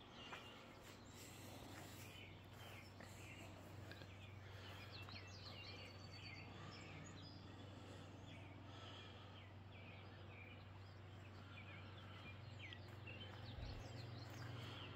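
Faint outdoor ambience of many small birds chirping and calling, with a steady low hum underneath.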